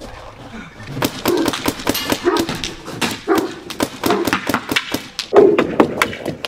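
Rapid paintball gun fire, sharp cracks several a second, with a man yelping and crying out in pain as the paintballs hit him.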